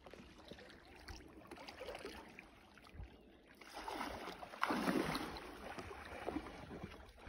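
Paddle splashing in lake water beside an inflatable paddleboard. The loudest splash comes a little past halfway, with softer water sounds around it.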